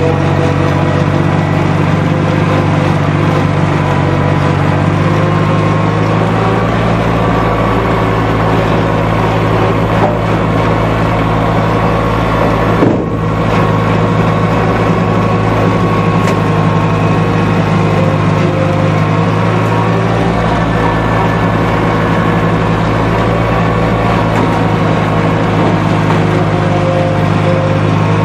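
Lawn mower engine running at a steady speed, close to the microphone, with one brief knock about halfway through.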